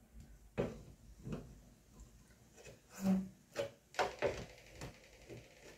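Scattered light clicks and scrapes of a screwdriver tip prying at the locking tabs of a keyboard's plastic speaker-grill housing, about a dozen small knocks over several seconds.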